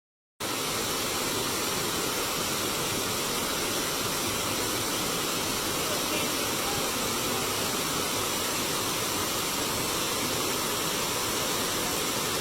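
Waterfall: a steady, even rush of falling water that comes in just after a moment of dead silence at the very start.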